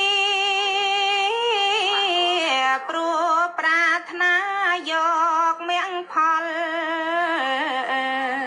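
A woman's solo voice singing a slow melody, with a wavering vibrato on long held notes that move in steps between short breaths.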